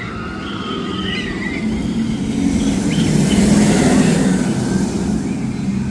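A Fury 325 giga coaster train passing on its steel track: a rumble that swells to a peak about three and a half seconds in, then fades.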